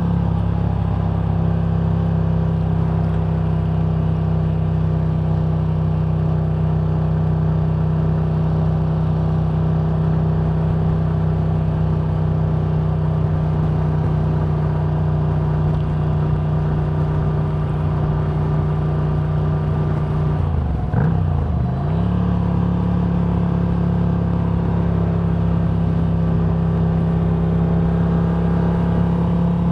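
Road vehicle travelling at a steady speed: a steady low drone. About 21 seconds in, its pitch dips briefly and then climbs back.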